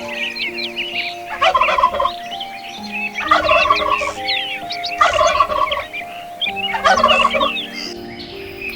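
An animal calling in four short rattling bursts, each under a second and roughly evenly spaced, over soft piano music with small birds chirping.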